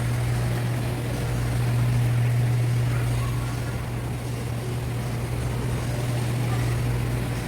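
A steady low hum with faint shop background noise underneath.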